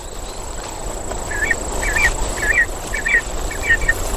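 A series of short, high chirping animal calls, about two a second, starting a little over a second in, over a steady hiss of outdoor ambience.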